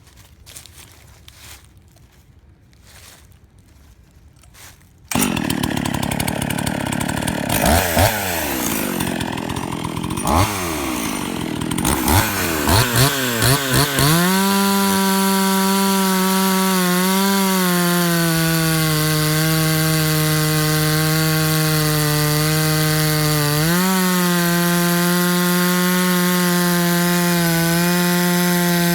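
Husqvarna 44 two-stroke chainsaw starting about five seconds in, then revved up and down in several blips. After that it is held at a steady high speed, dipping briefly twice. The saw is a freshly rebuilt runner with good compression.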